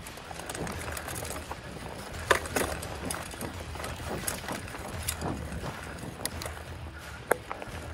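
Mountain bike rolling fast down a dirt trail: a steady rumble of tyres and rattling of the bike over the rough ground, with sharp knocks from bumps, the loudest about two seconds in and again near the end.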